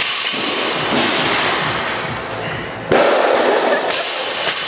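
Loud, busy gym noise in a large hall during a thruster and pull-up workout: voices and thuds of equipment mixed together. The noise gets suddenly louder about three seconds in.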